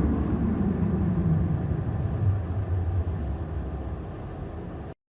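Car engine running, its pitch falling over the first couple of seconds as the sound gradually fades, then cut off abruptly near the end.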